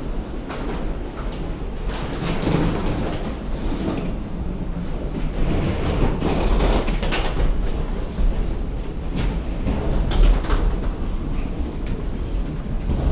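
Wheeled suitcases rattling and clicking as they roll along a jet bridge floor, mixed with footsteps, over a steady low rumble.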